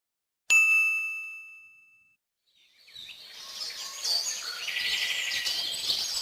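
A single bright bell ding, struck once about half a second in and ringing out, fading over about a second and a half. After a short silence, birds chirp and twitter from about halfway through.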